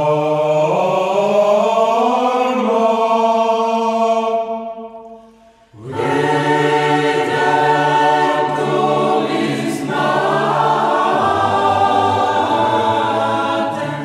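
A choir singing an example of classical vocal counterpoint in the strict style of sixteenth-century polyphony, several voices moving in long held notes. The first phrase fades out about four and a half seconds in, and a second passage starts about a second later.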